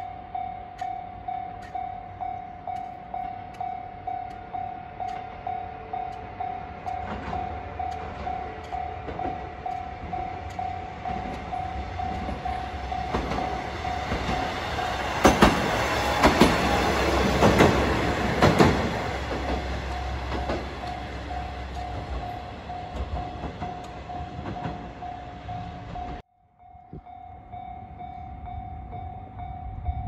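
A Japanese level-crossing warning bell rings steadily in a repeating ding. Over it a KiHa 120 single-car diesel railcar approaches and passes: a rising engine rumble, then the loudest stretch, with wheels clacking over rail joints about halfway through. Near the end the sound cuts out briefly and the crossing bell comes back.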